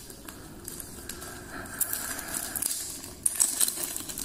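Light handling noise of a multi-tool accessory blade, a half-circle saw blade, being turned over in the hands: scattered small clicks and rustles, a little busier near the end.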